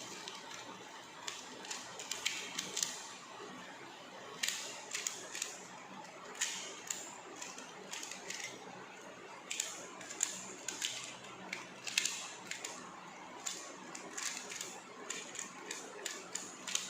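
Pyramid cube (Pyraminx) being twisted rapidly by hand in a timed speed-solve: irregular runs of quick plastic clicks and clatter as its faces turn.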